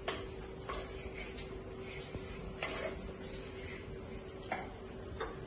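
Quiet kitchen handling sounds: a few faint, irregular clicks and soft knocks as fish curry is mixed by hand in an earthenware pot, over a steady low hum.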